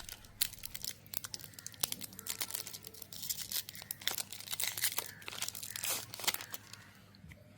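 Plastic-foil chocolate bar wrapper being torn open and crinkled by hand, with irregular crackles and rustling that die away near the end.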